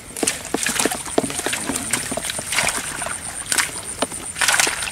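Irregular clicks, knocks and wet rustles of a fish trap's catch, mostly snails, being dumped out and sorted by hand, with a few louder rustling bursts.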